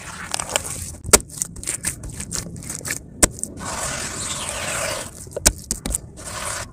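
Hands squeezing and slapping wet mud in a plastic tub, played at double speed: a run of sharp wet smacks and squelches, with a steadier wet sloshing for about a second and a half in the middle.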